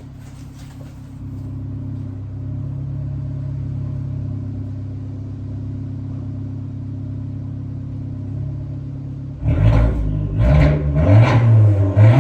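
A car engine idling steadily, a little louder from about a second in. About nine and a half seconds in, a louder sound with deep bass and sharp regular hits comes in over it.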